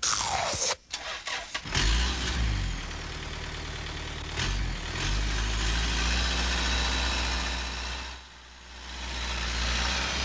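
A sudden falling swish and a few sharp clicks, then a semi-truck engine starting up and running steadily. The engine fades briefly about eight seconds in and comes back.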